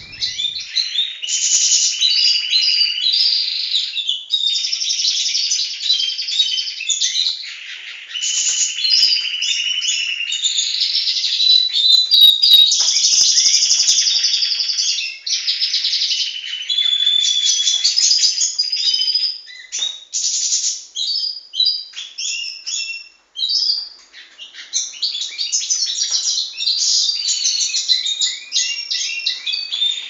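Pet canaries, European goldfinches and canary-goldfinch mules singing: a continuous run of high trills, warbles and chirps, with a few brief breaks in the second half.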